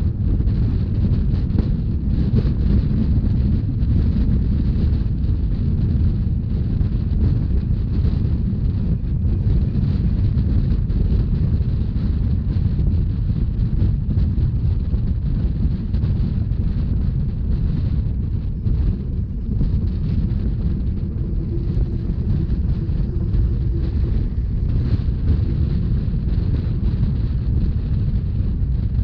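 Narrow-gauge Rhaetian Railway train running at speed: a steady low rumble from the running gear, with wind buffeting the microphone.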